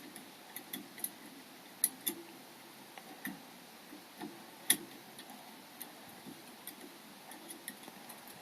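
Lock picking in a seven-lever Chubb 3G117 mortice lock: small, irregular metallic clicks and ticks from the pick working the levers inside, a few sharper clicks standing out.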